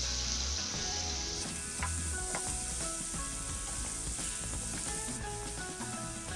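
Food sizzling as it fries in a pan, stirred with a utensil that taps the pan a few times about two seconds in. The sizzle turns brighter about a second and a half in.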